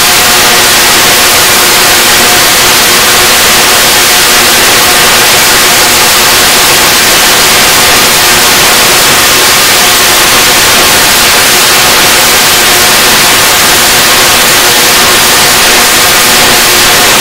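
Large bipolar rotary-spark-gap Tesla coil firing continuously, its arcs striking a grounded laptop target: a very loud, steady crackling rasp with an even buzzing pitch inside it.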